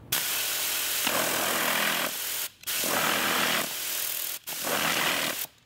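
Tornador air cleaning gun blowing compressed air from a pancake compressor, regulated to 50 PSI. It fires in three rushing blasts with two short breaks between them.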